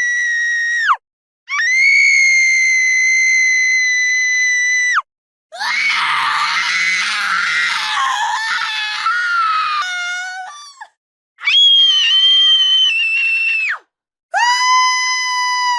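A woman screaming in terror: a run of long, high-pitched screams, each held for one to four seconds with short breaks between them. The scene starting about five seconds in is rougher and hoarser than the clear, steady ones around it.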